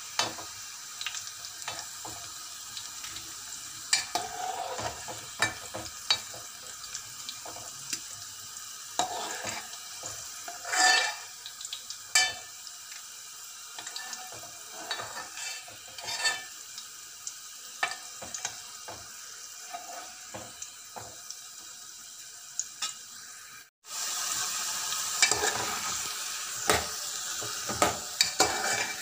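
Bitter gourd slices deep-frying in hot oil, a steady sizzle, while a steel spoon stirs them and clinks against the metal pot now and then. The pieces are being fried until golden for a pickle. The sizzle breaks off briefly about three-quarters of the way through and comes back louder.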